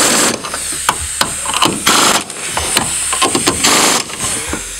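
Impact gun running in a few short bursts, driving down the top mount nut of a coilover on the strut tower.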